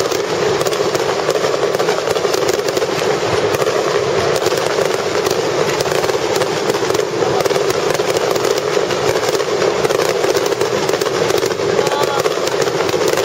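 Aerial fireworks bursting in a dense, continuous barrage of rapid crackling, with voices faintly underneath.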